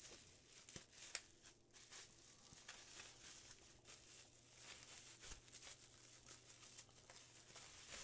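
Faint crinkling and rustling of bubble wrap being handled and pulled off resin model parts, a run of small crackles.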